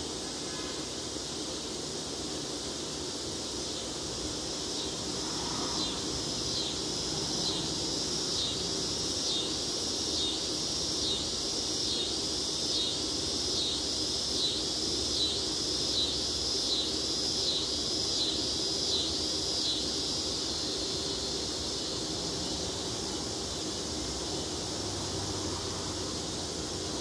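Insects calling: a steady high-pitched chorus, joined a few seconds in by one insect's pulsing call repeating a little more than once a second, which stops about twenty seconds in. A faint low steady hum runs underneath.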